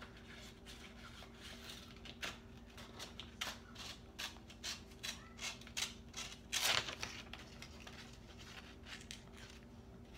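Scissors snipping through a sheet of paper in a run of short, uneven cuts, the loudest snip about two thirds of the way through.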